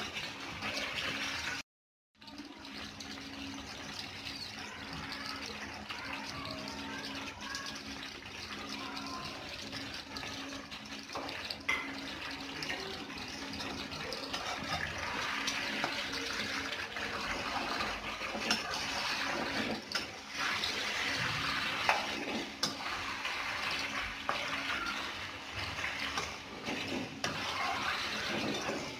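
Chicken, potatoes and tomatoes sizzling and bubbling in a non-stick wok on a gas burner, with scattered scrapes and taps of a spatula against the pan as the pieces are turned. A steady low hum runs underneath, and the sound cuts out briefly about two seconds in.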